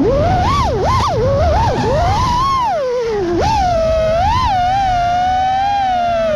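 6S FPV freestyle quadcopter's brushless motors whining, the pitch swooping up and down sharply with throttle punches and turns. It drops low about three seconds in, jumps back up, and holds fairly steady near the end, over a low rumble.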